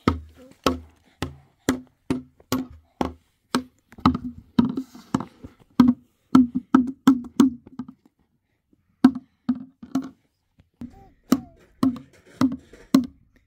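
A child drumming with his hands on an upside-down plastic basin: a hollow knock about twice a second, with a short break about two-thirds of the way through.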